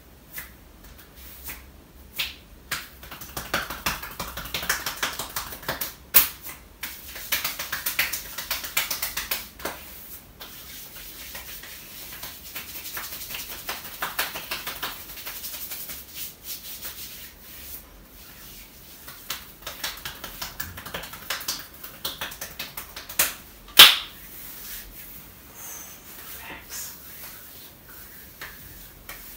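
Hands massaging bare shoulders and upper arms: skin rubbing with a scattering of sharp pats and clicks, the two loudest about six and twenty-four seconds in.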